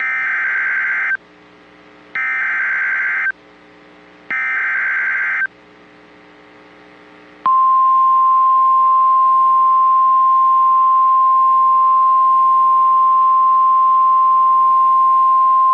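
NOAA Weather Radio emergency alert: three bursts of the SAME digital header, each about a second long with a second's gap between them, followed about seven and a half seconds in by the steady single-pitch warning alarm tone. Together they signal that a warning, here a severe thunderstorm warning, is about to be broadcast.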